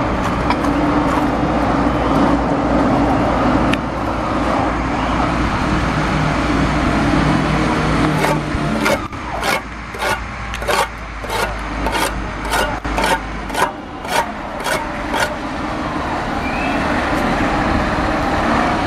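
Bricklayer's trowel scraping mortar across a concrete footing in a run of quick strokes, about two a second, starting some eight seconds in, over a steady low background rumble.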